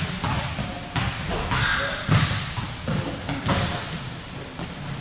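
A basketball thudding on a hardwood gym floor: a few separate bounces, roughly a second apart, echoing around the large hall.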